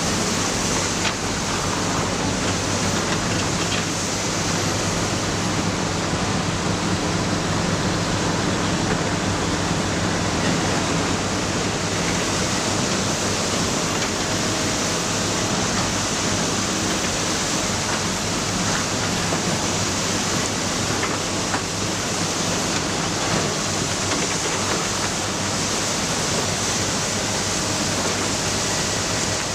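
Excavator's diesel engine running steadily: a dense, even rumble and hiss with no letup and no clear knocks.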